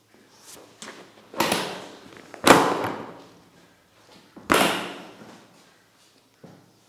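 Hands slapping in percussive head massage: a couple of light slaps, then three loud sharp ones over about three seconds, the second loudest, each trailing off over about half a second.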